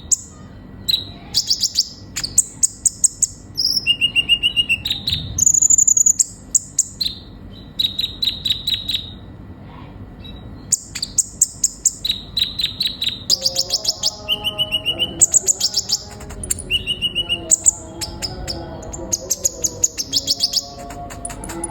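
A sunbird (kolibri ninja) singing: rapid phrases of high, thin chirps and trills, broken by short pauses.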